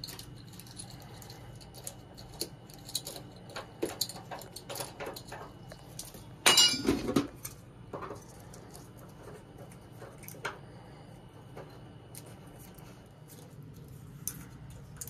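Metal plumbing parts and tools clinking and knocking as they are handled, with a louder rattling clatter about six and a half seconds in.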